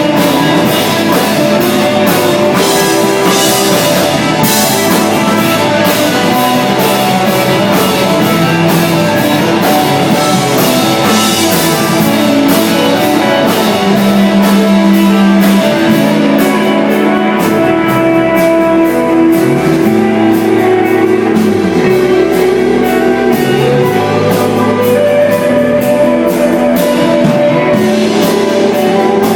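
Live instrumental desert rock band playing: electric guitar, two bass guitars and drum kit, with sustained guitar notes over a steady drum beat.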